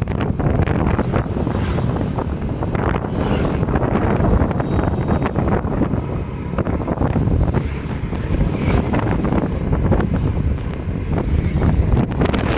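Rushing wind buffeting a phone's microphone on a moving motorbike, a steady rough roar heaviest in the low end, with the bike's running rumble underneath.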